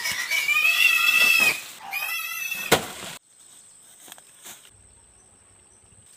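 Loud, drawn-out animal cries: two long calls and a shorter one, with a sharp knock near the end of them. About three seconds in they cut off, leaving quiet with a faint, high, steady tone.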